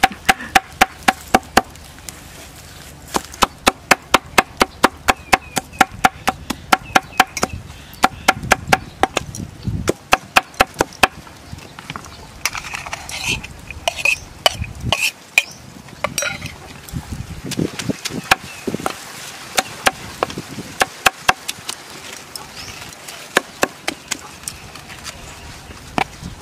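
Cleaver chopping fast on a wooden chopping board, mincing garlic and chilies into prahok. The strokes come in quick, even runs of about five a second with short pauses between them, and grow sparser in the second half.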